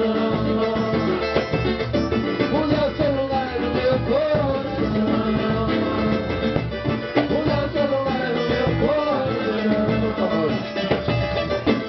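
Live samba band playing an instrumental passage, plucked strings over a steady samba percussion rhythm.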